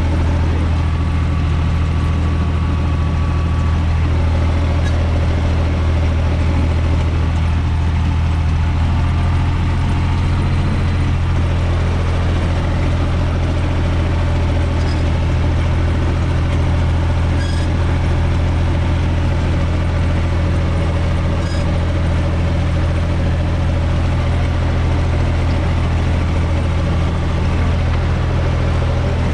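Diesel engine of a UTB 445 tractor running steadily at an even engine speed, heard from inside the cab as the tractor drives along the field.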